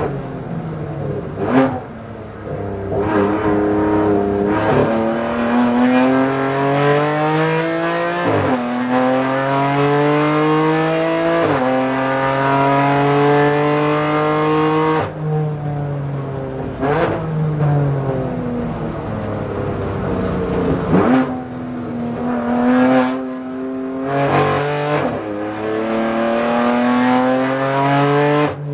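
BMW M4 GT4 race car's twin-turbo inline-six heard from inside the cockpit at racing speed: the engine note climbs repeatedly under hard acceleration, each climb cut off sharply by a gearshift. In the middle it holds a steadier pitch off the throttle, then several quick shifts follow before it pulls again.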